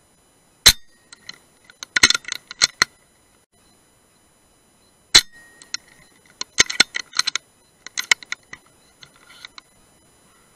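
Two sharp shots from a Brocock Sniper HR .177 PCP air rifle, about four and a half seconds apart and the loudest sounds here. About a second after each shot comes a quick run of light metallic clicks and clacks, as the rifle's action is cycled for the next pellet.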